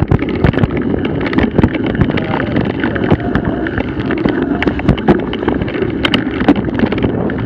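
Mountain bike riding down a rough, leaf-covered dirt trail: tyres rolling over the ground, with frequent knocks and rattles from the bike over bumps. Wind rushes on the mounted camera's microphone.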